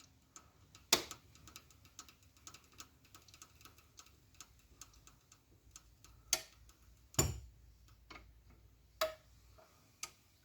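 Scattered metallic clicks and knocks from hand work on a car's suspension: a sharp click about a second in, a run of faint irregular ticks, then a few louder knocks, the heaviest with a low thud about seven seconds in.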